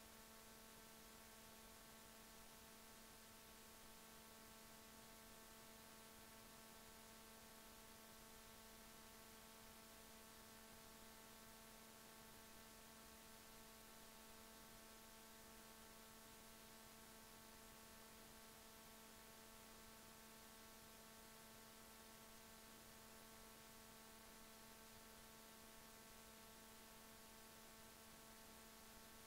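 Near silence: a faint, steady electrical hum over hiss, unchanging throughout.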